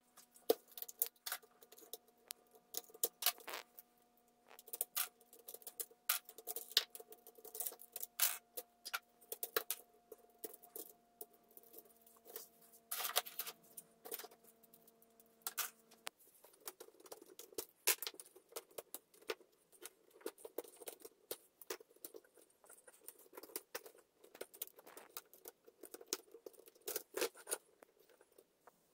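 Plastic LEGO Technic parts clicking, tapping and rattling as the model is handled and set down on paper, a quick, irregular patter of light knocks. A faint steady hum underneath stops about halfway through.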